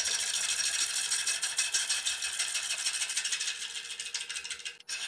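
A turning tool cutting the outside of a large, off-centre yew bowl blank spinning on a wood lathe: a steady, rapid rattling hiss as the tool meets the uneven wood in quick repeated hits, which breaks off briefly near the end.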